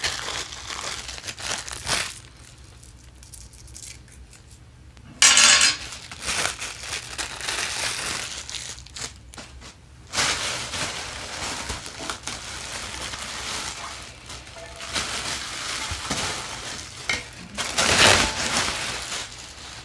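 Plastic packaging bag crinkling and rustling while a candy machine's heavy base is handled and pulled out of it, with two louder, sharper bursts of noise, about five seconds in and near the end.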